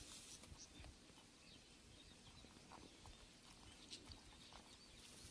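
Near silence with a calf drinking water from a plastic bucket: a few faint, scattered sips.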